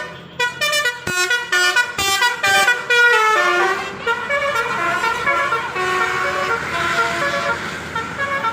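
Telolet horn of a tour bus playing a quick run of short notes that step up and down in pitch, then several longer tones held and overlapping.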